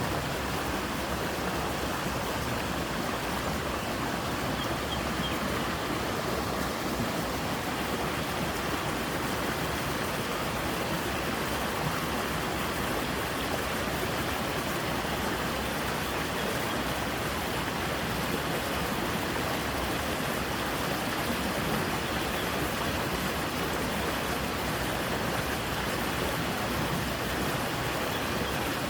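Creek water rushing steadily over rocks, a continuous even splashing.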